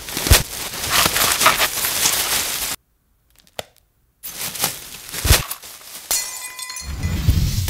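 White plastic bag rustling and crinkling as it is handled and filled, a dense crackle of small clicks. It cuts to silence for about a second and a half partway through, then the rustling resumes.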